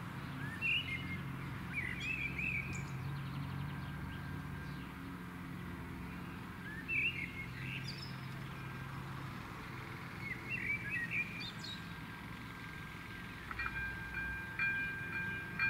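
Small birds chirping and singing. Near the end the level crossing's AŽD 97 warning signal starts up: an electronic bell tone, repeating with short regular breaks, that marks the crossing closing for an approaching train.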